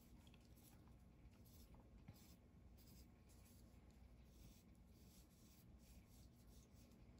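Faint scratching of a graphite pencil on paper in short, irregular strokes as small circles are drawn.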